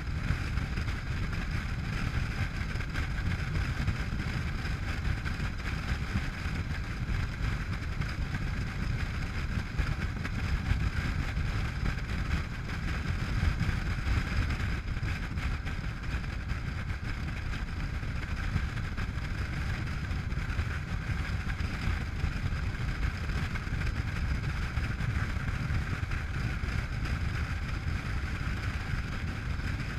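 Honda NC700X motorcycle's parallel-twin engine running steadily at cruising speed, mixed with the steady rush of wind over the camera.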